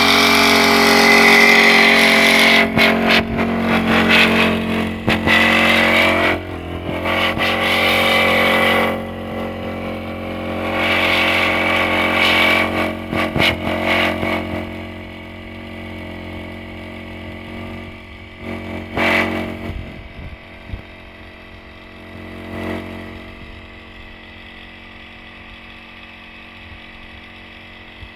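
Small two-stroke engine of a backpack power sprayer running steadily at a fixed speed, with the loud hiss of the spray jet over it for about the first half. After about fifteen seconds the hiss drops away to a few short spurts, leaving mostly the engine's hum.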